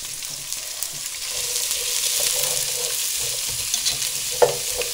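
Chopped onions sizzling as they sauté in olive oil in a pot, stirred with a utensil, with a sharp knock about four and a half seconds in.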